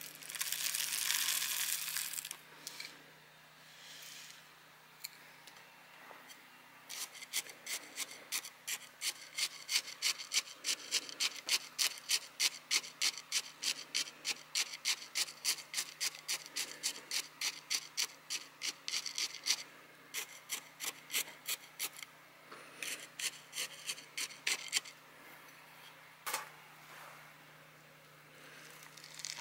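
Granular bonsai soil pours from a container into the pot, a brief gritty rush. Then a wooden stick is jabbed into the soil over and over to settle it around the roots: a rhythmic gritty scraping at about three or four strokes a second, which stops for a moment and resumes with a few looser strokes.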